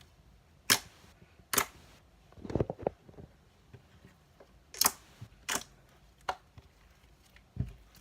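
Homemade slime being squished and poked by hand, giving a series of irregular sharp pops and clicks.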